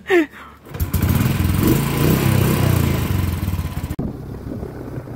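A Royal Enfield motorcycle's single-cylinder engine comes in about a second in and runs loudly with an even beat. After a sudden cut near the end, it is heard more quietly while the bike is ridden along.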